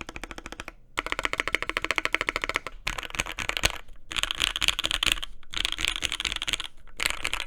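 Fast typing on a Velocifire S58 60% custom mechanical keyboard fitted with lubed Mauve linear switches, burger-mounted on rubber O-rings with packing foam under the PCB. Rapid runs of keystrokes are broken by a few brief pauses.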